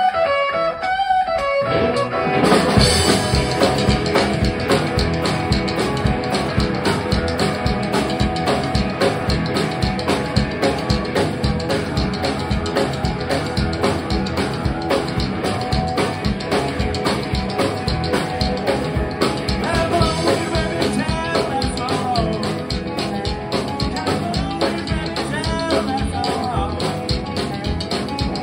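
Live rockabilly band: an electric hollow-body guitar plays a short lead-in, then the upright double bass, drums and a second hollow-body guitar come in together about two seconds in with a fast, driving beat.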